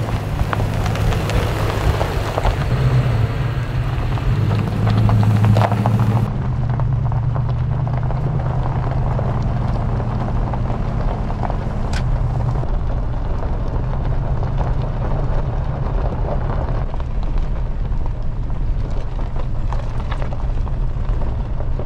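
Toyota Tundra pickup driving on a gravel road: a steady low engine hum with tyre and wind noise, growing duller about six seconds in.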